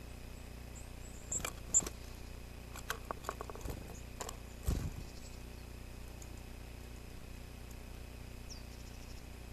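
A squirrel's claws clicking and scratching on the wooden owl nest box as it climbs in through the entrance hole, with a soft thump about five seconds in as it drops to the nest floor. A faint short bird chirp near the end, over a steady low camera hum.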